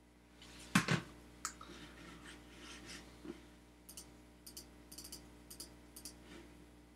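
A single thump about a second in, then a run of light, quick clicks of a computer keyboard being typed on in the second half.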